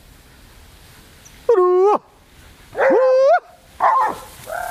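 Boar-hunting dog whining and yelping: four high cries, the first two long and held, the last two short. It is the sound of an anxious, eager dog.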